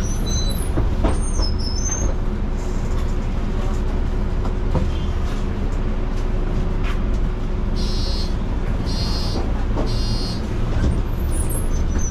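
City bus in motion, heard from on board: a steady engine drone and road rumble with small rattles. Near the end come three short electronic beeps about a second apart.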